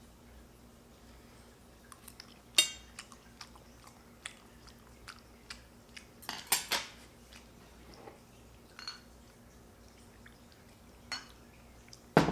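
Scattered clinks and knocks of hard objects being handled, a dozen or so irregular taps. A few louder strikes, about two and a half seconds in, around six and a half seconds and at the very end, ring briefly.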